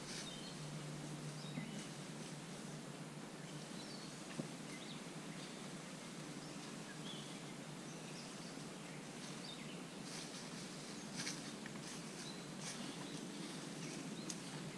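Faint outdoor ambience with scattered short bird chirps and a few light clicks or rustles in the later seconds.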